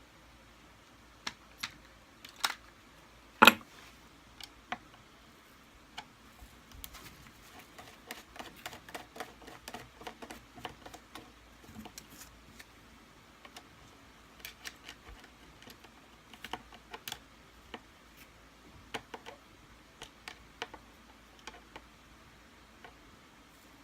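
Scattered clicks and taps of a screwdriver and spanner against screws, washers and the plastic and metal housing of a Kirby Sentria II vacuum cleaner as the screws holding its motor are worked out. There is one sharp knock about three and a half seconds in and a quick run of small clicks from about eight to eleven seconds.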